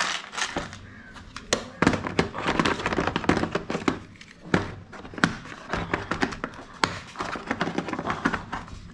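Hand tools handled in a moulded plastic tool case: irregular clicks, knocks and rattles as tools are pulled from and pressed into the tray.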